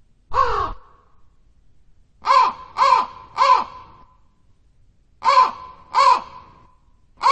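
Crow cawing: harsh caws of about a third of a second each, first a single caw, then three in quick succession, then two more, with another starting right at the end.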